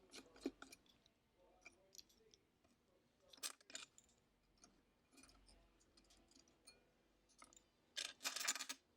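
Faint, scattered clicks and ticks of a small screwdriver and tiny screws being worked out of an iPhone XR's front speaker bracket, with a brief louder rustle near the end.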